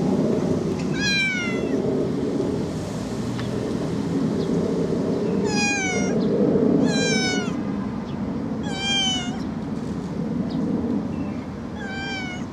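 A kitten meowing, five short calls a few seconds apart, over a steady low background rumble.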